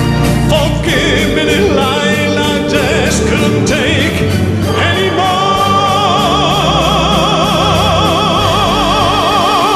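A man singing into a handheld microphone over a band accompaniment with a steady beat. About halfway through he holds one long note with a wide vibrato.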